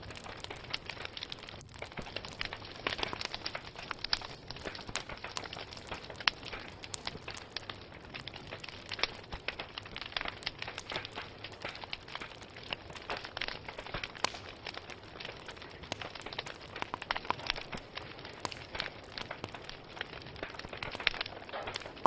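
Wood fire crackling steadily, with a dense run of small snaps and now and then a louder sharp pop from the burning logs.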